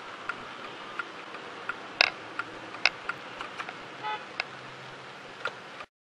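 Dashcam audio from a car in traffic: a steady road hiss with scattered sharp clicks, and a brief car-horn toot about four seconds in. The sound cuts off abruptly near the end.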